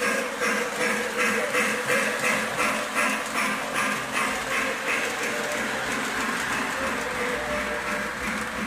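Motors and gears of animated Christmas village pieces running: a steady mechanical clicking and whirring that pulses about three times a second.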